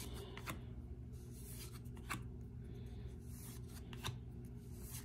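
Baseball trading cards being handled and flipped through: soft sliding scrapes and small clicks of card against card, a few at a time, over a faint low hum.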